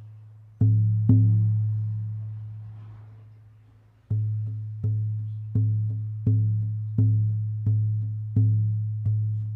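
Buffalo-hide shamanic frame drum struck by hand, giving a deep booming tone that rings out slowly. Two beats close together are followed by about three seconds of the note fading, then a steady beat of roughly one and a half strikes a second.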